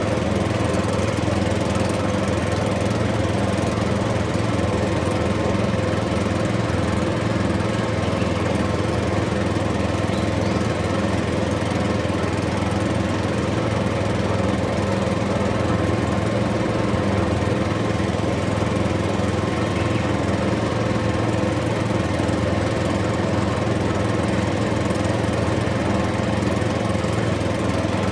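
DIY mini thresher machine running steadily, its motor giving an even, unbroken hum.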